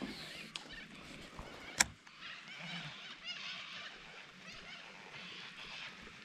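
A sharp single click from a baitcasting reel about two seconds in, typical of the reel engaging as the handle is turned after a cast. Faint bird calls chirp in the background.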